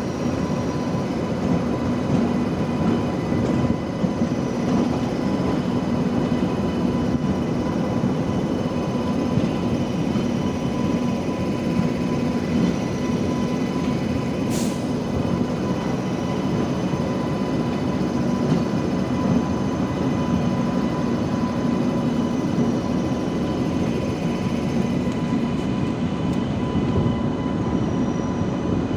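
Train running steadily on the rails: an even, continuous rumble with a faint steady whine.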